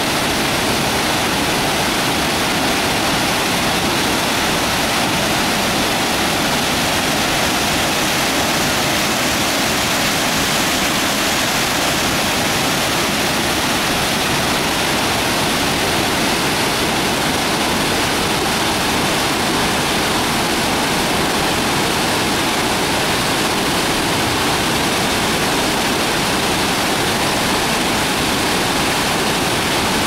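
Waterfall: a loud, steady rush of falling water close by.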